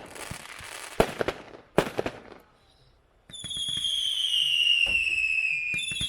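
World Class 'Merica' 200-gram consumer firework cake firing: sharp bangs and crackling pops in the first two seconds, a short pause, then long whistles from about halfway in that slowly fall in pitch, a second whistle starting near the end.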